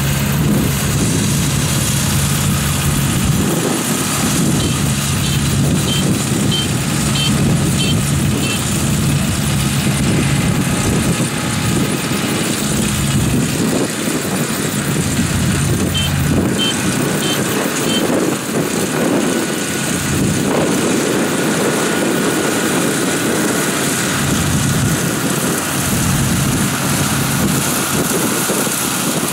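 Rice combine harvester running steadily as it cuts standing rice, its engine a continuous hum with constant mechanical noise. Twice, a short run of faint, evenly spaced high chirps sounds over it.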